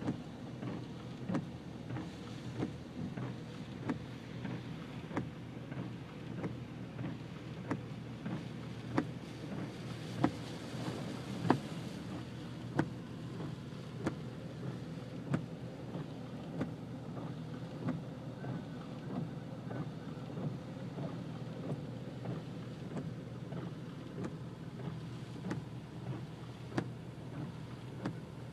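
Windshield wipers of a car sweeping, with a short thump about every 1.3 seconds, heard from inside the cabin. Under them run the steady low hum of the idling engine and rain on the glass.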